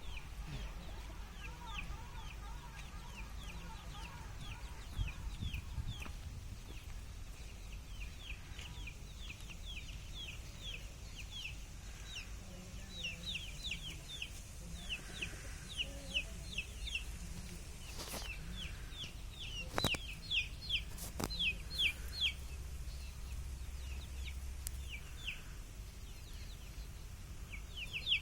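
Desi chickens calling: a steady stream of short, high, falling peeps, several a second, with brief pauses. A few sharp knocks come about two-thirds of the way through.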